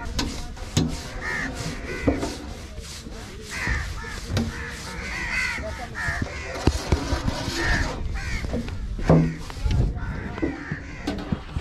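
Several crows cawing over and over, with soft knocks and scrapes of a wooden rolling pin working flatbread dough and one louder thump about nine seconds in.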